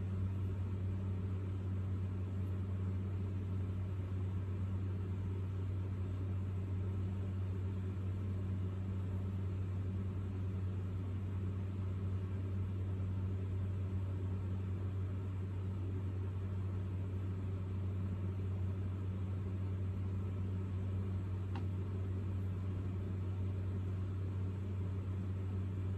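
Steady low hum with a faint hiss: room background noise from a running fan or appliance, with no other sound standing out.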